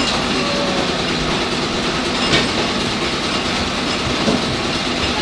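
A steady mechanical rumble with a clattering texture, and one sharp knock a little over two seconds in.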